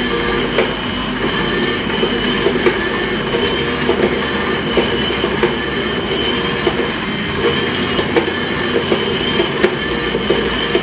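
Motorized interactive cat toy running with its sound turned on: a steady motor whir under short, high electronic chirps that come in groups of three about every two seconds, with scattered light clicks and knocks.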